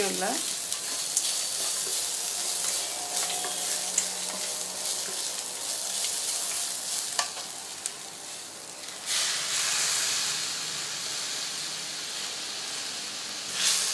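Onion, tomato, coconut and dal mixture sizzling in oil in a stainless steel kadai, stirred and scraped with a wooden spatula, with a few sharp taps of the spatula on the pan. The sizzle grows louder about two-thirds of the way through as fresh coriander leaves go into the pan.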